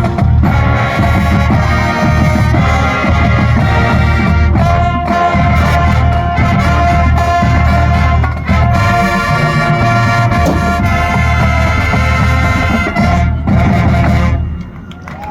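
Marching band playing a Christmas tune, brass carrying the melody over a heavy bass drum beat. The music stops sharply about a second before the end.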